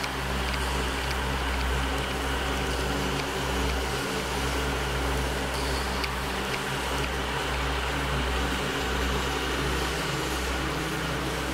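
FPV quadcopter's electric motors and propellers running steadily in flight, picked up by the camera mounted on the craft: an even hum with several held tones over a low rumble.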